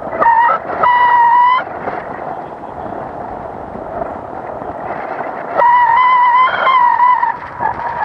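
Wind rushing over the microphone in flight, broken by two long, high-pitched wavering tones, one about a second in and another from about five and a half seconds.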